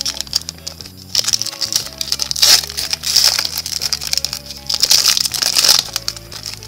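Foil wrapper of a 2014-15 Prizm basketball card pack crinkling loudly in several bursts as it is torn open and the cards are pulled out, over soft background music.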